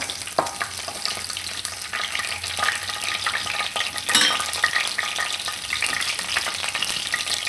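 Chopped garlic sizzling and crackling in hot oil in a kadai, the tempering (vaghar) stage as the garlic is let turn lightly golden, with a sharper pop about four seconds in.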